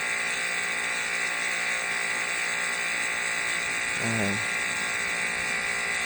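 A 4,300 PSI pressure washer running steadily, its motor whine mixed with the hiss of the high-pressure water jet.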